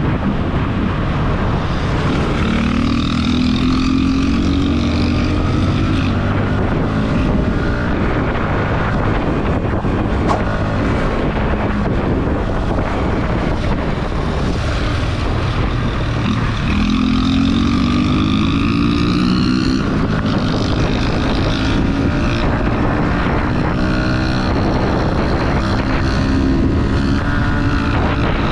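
Yamaha R15's 155 cc single-cylinder engine under way on the road, its revs climbing several times and falling back as the bike accelerates, with wind rushing past the microphone.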